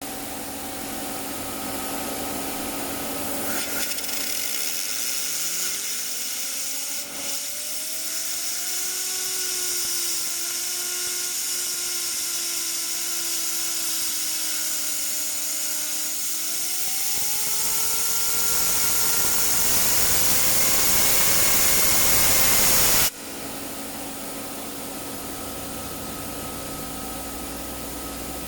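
A PC cooling fan, rigged as a homemade wind generator, spins up under a strong rushing air stream. Its whine rises over a few seconds, holds steady, then climbs higher as the rush of air grows louder, and everything cuts off suddenly near the end. A steady low hum runs underneath.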